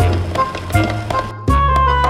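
Background music with a bass line and a melody.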